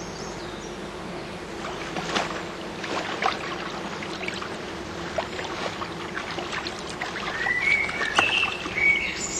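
Hooked brown trout splashing repeatedly at the water surface as it is played on a fly line. A few bird chirps come in near the end.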